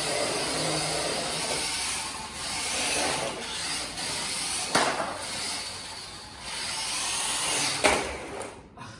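The brushed motor and gearbox of a WPL D12 1:10 RC Suzuki Carry pickup whir as it drives across a laminate floor, swelling and dropping with the throttle. Two sharp knocks come near the middle and near the end, the last as the truck tips onto its side.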